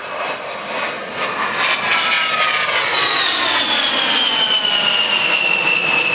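Fairchild A-10C Thunderbolt II's twin General Electric TF34 turbofans in a low flyby: the jet noise swells over the first two seconds, then the high fan whine glides steadily down in pitch as the aircraft passes overhead.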